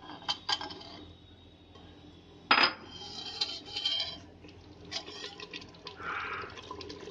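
A metal spatula stirring and knocking against an aluminium pressure cooker, scraping through the wet gravy and green bell pepper strips: a few light clicks, one sharp loud knock about two and a half seconds in, then a stretch of clattering, scraping stirring.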